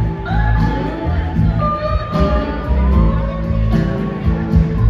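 Live rock band playing a slow blues, electric guitars over bass and drums, with a guitar line gliding up and down in pitch.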